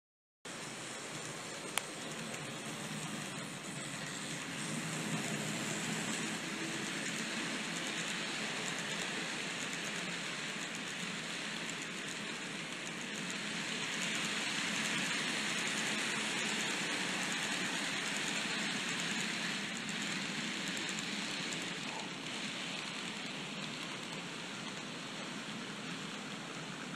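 N scale model train rolling past: a steady hissing rumble of small metal wheels on the track. It swells as the hopper cars pass closest, with a couple of faint clicks about two and five seconds in.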